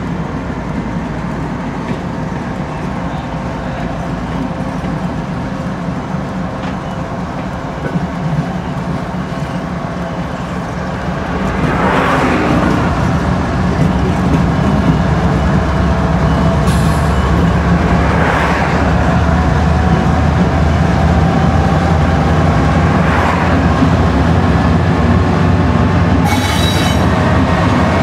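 Union Pacific diesel locomotives running with a steady low rumble, heard from a car driving alongside, mixed with the car's road noise. The rumble gets louder about 11 seconds in, and a few brief whooshes swell and fade over it.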